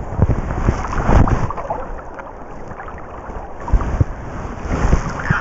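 Wind buffeting the camera's microphone in irregular gusts, over river water lapping and sloshing close to the microphone.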